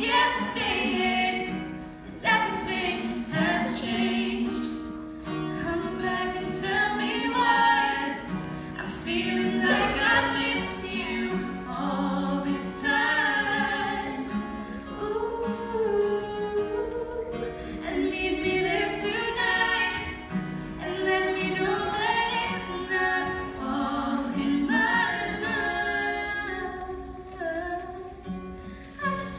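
A woman singing a pop ballad live to a strummed acoustic guitar, heard from the audience in a hall.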